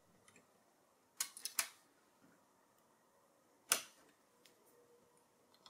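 Three small sharp clicks, two close together about a second in and one more near four seconds, as the tiny snap-on antenna connectors are pried off the M.2 Wi-Fi card of an Intel NUC 12 Pro.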